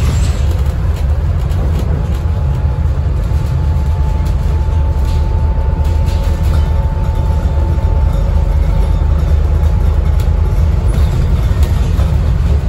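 Scania N250UD double-decker bus under way, heard from inside on the upper deck: its five-cylinder diesel engine and road noise make a steady low rumble, with a faint steady whine for a few seconds in the middle.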